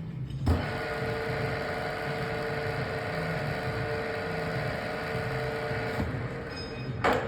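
Parkson 2N universal milling machine running: a clunk as a drive is engaged, then a steady mechanical whine that eases off near the end, where another clunk sounds.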